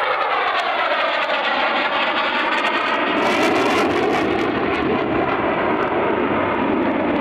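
Fighter jet flying overhead: steady jet-engine noise with a slow sweeping, phasing whoosh as it passes.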